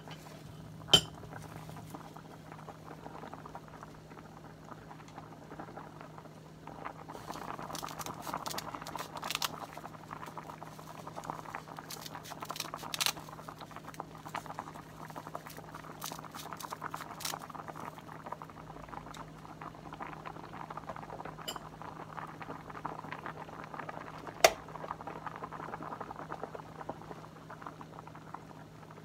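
A pot of tofu soup boiling hard, bubbling steadily, louder from about a quarter of the way in, over a steady low hum. Two sharp knocks stand out, one about a second in and one near the end.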